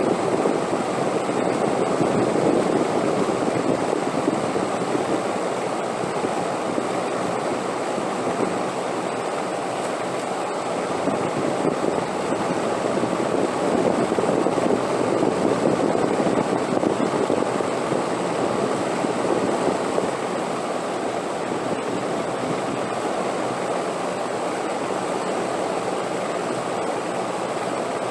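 Wind blowing steadily with a low rushing sound, swelling slightly and then easing twice.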